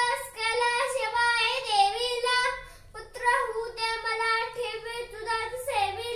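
A young boy singing solo in a clear child's voice, holding long notes, with a short pause for breath about three seconds in.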